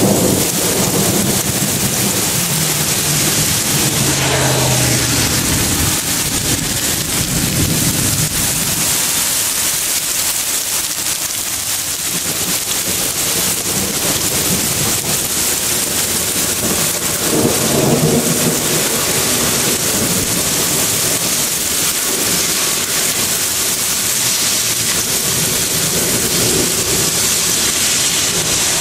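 Heavy rain pouring steadily in a thunderstorm, with rolls of thunder rumbling in the first few seconds and again about two-thirds of the way through.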